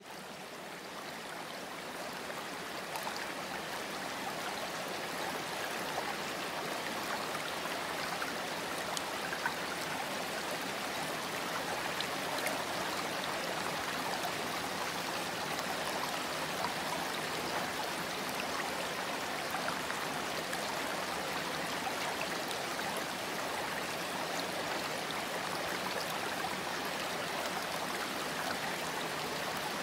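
Steady rushing of a flowing stream, with small splashes and drips through it, fading in over the first few seconds.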